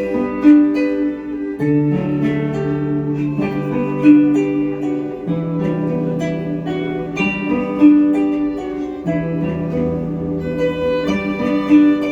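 Harp playing a slow melody in evenly paced plucked notes over a held bass line.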